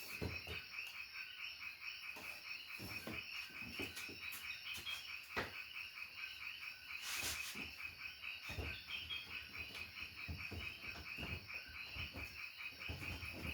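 A chorus of calling frogs in the background, a fast even pulsing that goes on without a break, with a few soft knocks and rustles of objects being handled.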